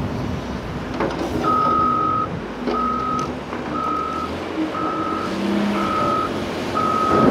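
Heavy construction vehicle reversing, its backup alarm sounding a steady single-tone beep about once a second, with the diesel engine running underneath.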